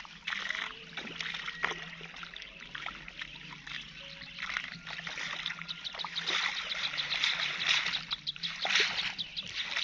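Water splashing and trickling, with many small drips and splashes, growing louder in the second half.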